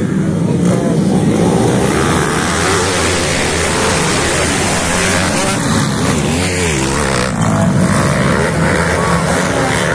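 A pack of motocross dirt bikes racing at full throttle, many engines running together, the revs rising and falling as riders shift and brake.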